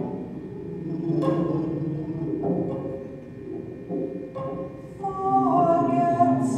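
A woman singing over a low bowed string instrument holding long notes, her voice growing loudest in a bending high phrase near the end. A few sharp clicks sound through it.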